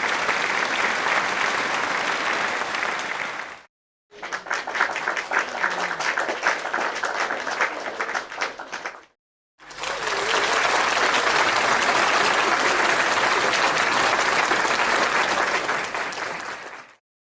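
Three separate recordings of audience applause cut one after another: a steady clapping crowd fading out, a short silence, clapping with separate claps standing out, another short silence, then a denser round of applause that fades away near the end.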